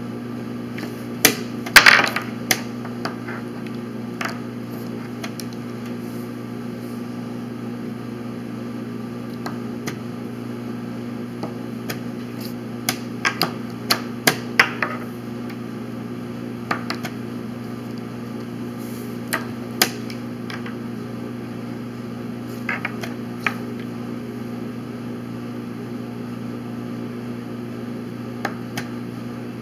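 Chess pieces being set down on a board and the buttons of a chess clock being pressed. They come as a scattering of sharp clicks and knocks, loudest about two seconds in, with a cluster of several more about halfway through. A steady low hum runs underneath.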